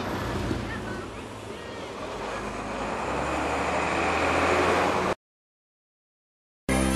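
City bus drawing up, its engine hum and road noise growing louder over a few seconds, then cut off suddenly. After about a second and a half of silence, music begins near the end.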